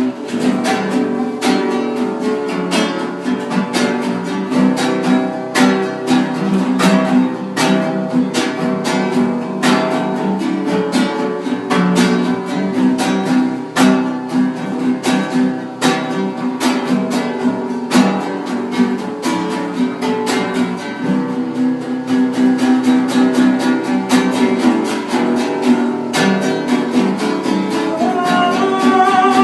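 Acoustic guitar (violão) playing a hymn tune instrumentally, with strummed chords and plucked notes that run on without a break.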